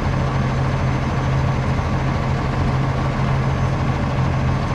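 Heavy engine running steadily, a constant low hum that does not change.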